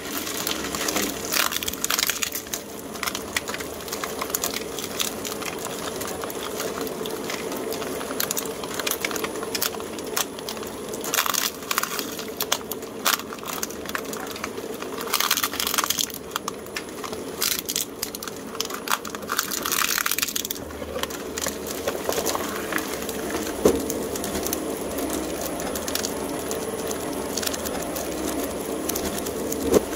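Twin-shaft shredder running with a steady motor hum while its toothed cutters crush and crack plastic surprise-egg capsules. The crunching and cracking is thickest in the middle. After that the machine runs on with only occasional sharp cracks as the hopper empties.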